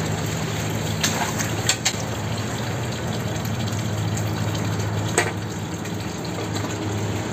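Water gushing steadily from a pipe into a concrete fish tank, over a low steady hum. A few brief sharp sounds cut through about a second in and again about five seconds in.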